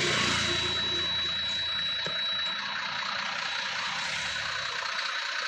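Truck diesel engine idling steadily, its low rumble strongest at first and easing off over a few seconds.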